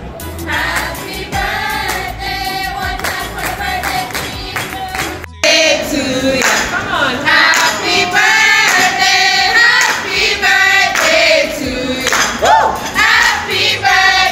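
A group of restaurant staff, women and men, singing together in chorus, with hands clapping along. About five seconds in the sound cuts to a louder recording of the group singing.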